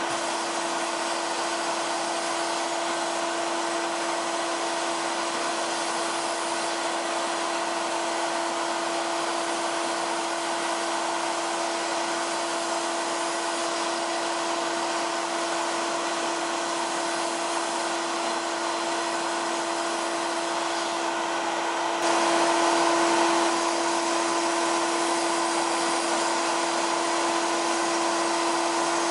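Abrasive blast cabinet in use, its nozzle blasting rust off a metal toy horse body: a steady hiss of air and grit over a constant hum. It gets slightly louder about three-quarters of the way through.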